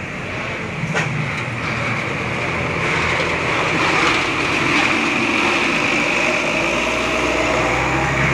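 Intercity coach bus pulling slowly past and away, its diesel engine running steadily, with a sharp click about a second in.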